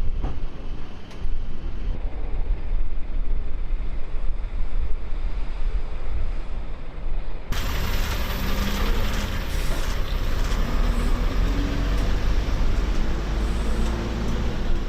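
Heavy vehicle engine running with a steady low rumble. About halfway through the sound turns suddenly brighter and fuller.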